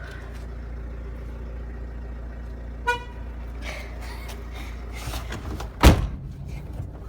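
Van engine running with a steady low drone. About three seconds in a vehicle horn gives one short toot, and a loud thump comes near six seconds.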